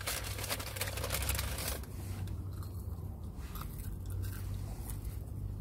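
Crunching and chewing of fried potato, a dense crackle for the first couple of seconds, then scattered clicks, over a low steady hum.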